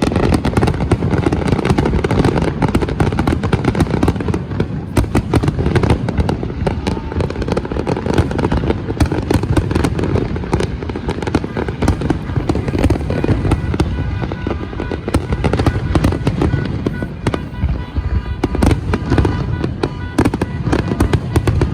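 A fireworks display: a continuous dense barrage of bangs and crackles over a steady low rumble, with no let-up.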